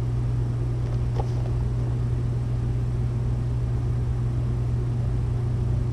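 Steady low mechanical hum, unchanging throughout, with a faint click about a second in.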